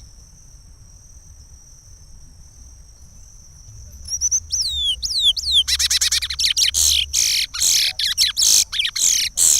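Curió (chestnut-bellied seed-finch) singing the Pará regional song. After a pause with only a faint steady high tone, the song resumes about four seconds in with falling whistled notes, then breaks into a loud, fast run of notes.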